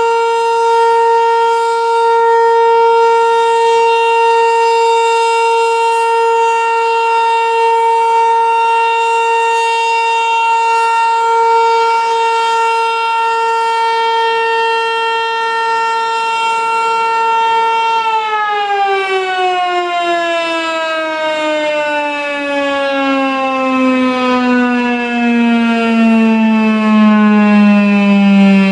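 American Signal T-135 AC/DC outdoor warning siren sounding a steady single tone, then, about two-thirds of the way through, winding down with its pitch falling steadily as the rotor slows.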